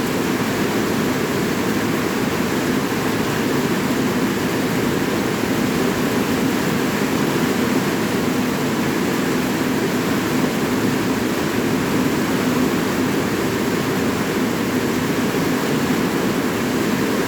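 Steady rain: an even, unbroken wash of noise with no separate drops, thunder or other events standing out.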